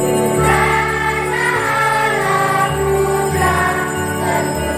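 Children's choir singing a hymn over sustained instrumental accompaniment.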